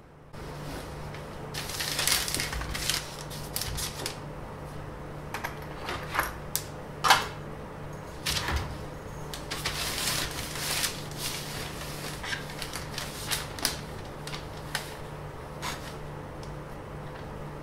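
Drafting tools handled on a paper-covered workbench: a compass and a steel ruler picked up and set down, paper shifting, and a pencil drawing along the ruler, heard as a run of irregular clicks and taps, the sharpest about seven seconds in. Beneath it, a steady low hum.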